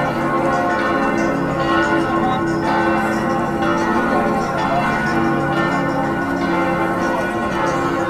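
Several church bells pealing together, their overlapping tones ringing on continuously with new strikes coming about every second.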